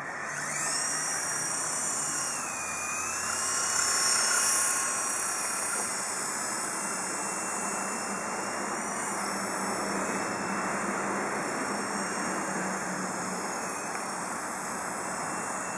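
Interceptor 052 toy RC helicopter's electric motors spinning up about half a second in, then whining steadily with the rotors as it flies. The pitch wavers as the throttle changes.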